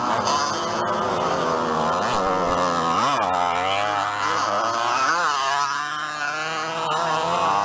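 Several 50cc motocross bike engines revving over one another, pitch rising and falling as riders throttle up and ease off, with sharp revs about three and five seconds in.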